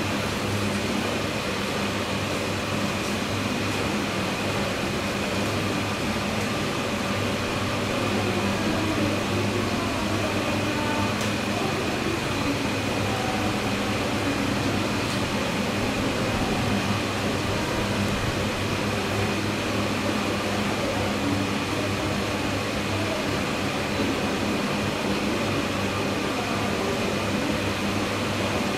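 Steady hum of ventilation machinery: a low drone with a faint high whine above it.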